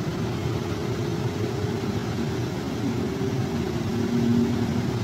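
Water rushing out through the sluice gates of the Rohri Canal regulator, a loud steady noise.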